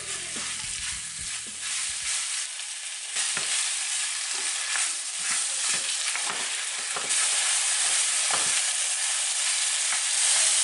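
Floured beef chunks sizzling as they brown in a frying pan on the highest heat, stirred and scraped with a wooden spatula. The sizzle grows louder about three seconds in and again about seven seconds in.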